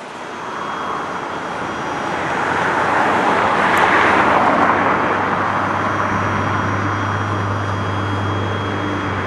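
A passing vehicle's rushing noise swells to a peak about four seconds in and then eases off. A low steady hum joins from about six seconds in.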